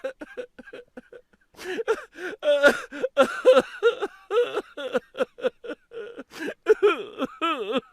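High-pitched vocalising in quick, short repeated sounds, several a second, ending in a longer wavering, sliding cry near the end.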